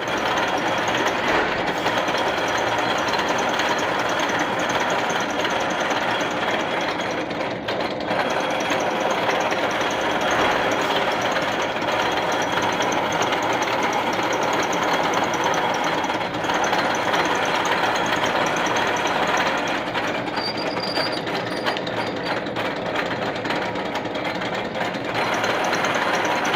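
A high-speed drilling or lathe machine running steadily with a dense, fast rattle.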